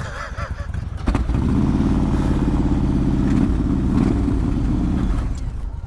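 V-twin cruiser motorcycle engine running. It gets louder about a second in, holds a steady note for about four seconds, then eases off near the end.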